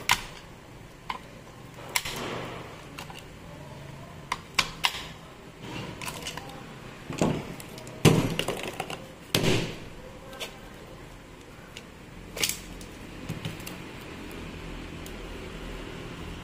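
Irregular clicks, taps and knocks of metal tools and plastic angle-grinder housing parts being handled and set down on a workbench during disassembly, with a couple of louder knocks about halfway through.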